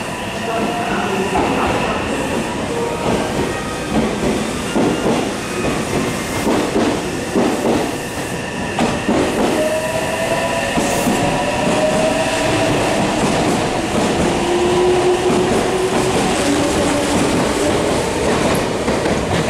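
Meitetsu 3300-series electric commuter train running along the platform, its wheels clattering over the rail joints. About halfway through, a motor whine rises in pitch as the train accelerates away.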